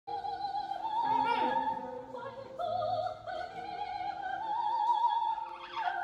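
Opera from a television: a singer holding long high notes with wide vibrato.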